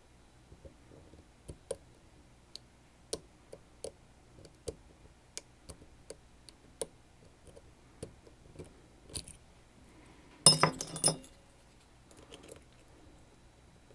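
Small metal clicks from picking tools working a Sargent Keso lock, spaced irregularly about one to two a second, then a brief burst of metallic clinking about ten and a half seconds in, with a fainter rattle a second later.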